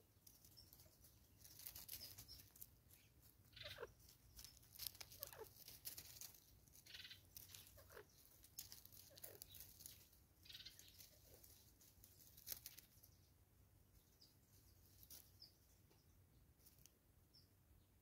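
Birds at a ground feeder: faint scattered rustles, taps and flutters in leaf litter with a few short, soft bird calls, busiest in the first two-thirds and thinning out near the end.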